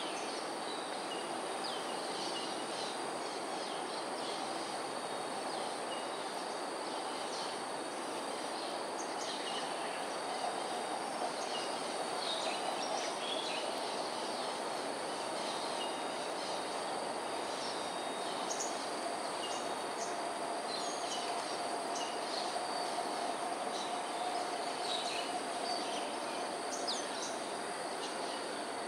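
Outdoor ambience after rain: a steady hiss under a constant high insect drone, with many short, high bird chirps scattered throughout. A faint low steady hum joins in the second half.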